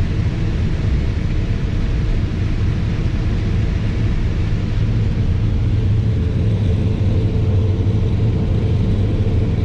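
New Holland CR 9.90 combine running while harvesting corn, heard from inside its cab: a steady, even low drone.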